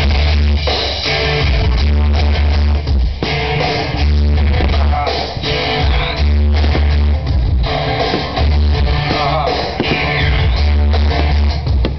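Loud rock music with electric guitar, bass and drums.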